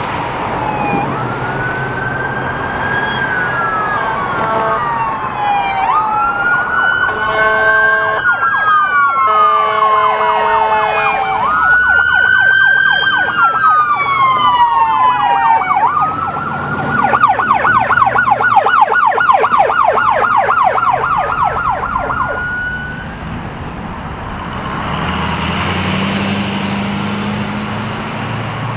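Electronic police sirens wailing, rising and falling, with two horn blasts about seven and ten seconds in. The sirens then switch to a fast pulsing yelp that fades out as the vehicles pass, leaving engine and traffic noise.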